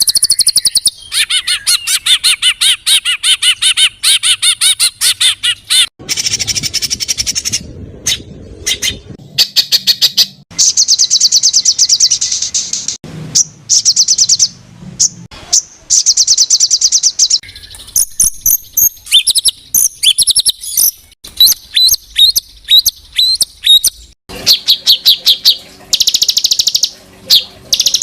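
Recorded songbird song: fast trills and strings of sharp, high repeated notes, the pattern changing abruptly every few seconds as one phrase gives way to another.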